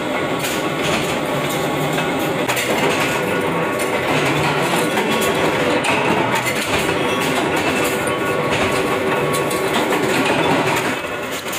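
Flywheel-driven mechanical power presses running steadily while stamping iron flower rosettes from sheet iron, a dense mechanical noise that drops a little near the end.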